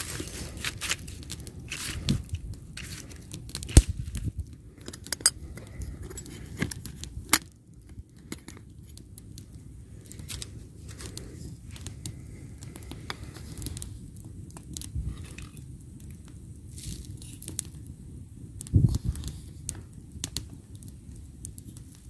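Stainless steel camp percolator being handled, its lid and basket clinking and knocking, with a sharp knock about four seconds in. Later a carved wooden spoon scoops ground coffee into the percolator basket, with soft scraping and gritty rustling and a couple of louder knocks near the end.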